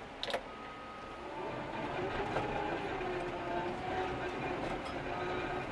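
Cat GPS-controlled bulldozer working under load: its diesel engine and tracks run steadily, with the engine note wavering and growing louder about two seconds in as the blade pushes dirt.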